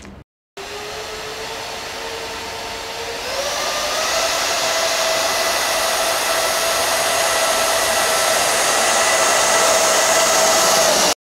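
Twin 50 mm electric ducted fans of a scratch-built RC Gulfstream G650 whining while it taxis. The whine starts suddenly after a brief gap, rises in pitch about three seconds in, and holds steady as it grows louder. The builder judges the fans' intakes too narrow to take in enough air.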